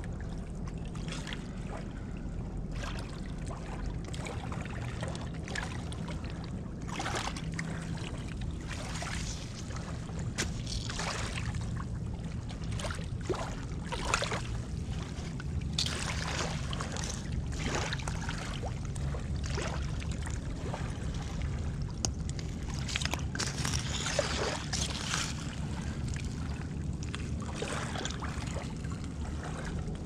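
Boots crunching and scraping over wet stones, brick rubble and broken glass set in mud, in irregular steps. A steady low rumble runs underneath.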